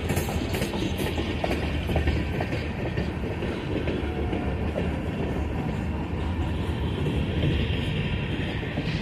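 Freight train of covered hopper cars rolling steadily past: a continuous rumble of steel wheels on rail, with a few clicks from the wheels and rail joints in the first seconds.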